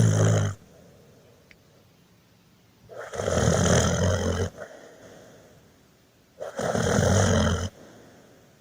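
Snoring in a slow, even rhythm: one snore ends just after the start, then two more follow about three seconds apart, each lasting about a second and a half, with a quieter breath fading out after each.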